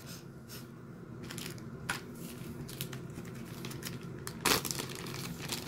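Packaging crinkling and rustling as it is handled, in scattered crackles with the loudest about four and a half seconds in.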